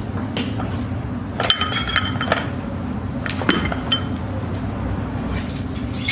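Metallic clinks and rattles from a loaded barbell's plates and sleeves as the bar is pulled and snatched overhead. The sharpest hits come about a second and a half in and again about three and a half seconds in, each with a brief ringing after it, over a steady low hum.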